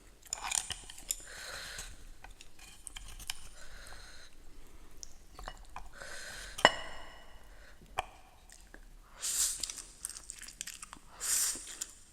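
A person chewing and crunching food close to the microphone. There is a sharp click about halfway through and two louder, hissing mouth noises near the end.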